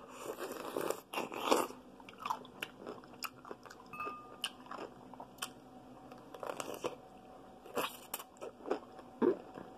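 Biting into and chewing a dill pickle: crisp, irregular crunches with wet chewing between them, loudest in the first second or two and again about eight seconds in.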